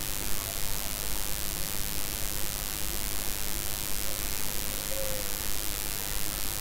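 Sliced onions frying in hot oil in a pot: a steady sizzling hiss.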